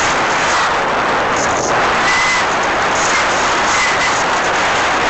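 Loud, steady rush of wind buffeting the microphone in flight.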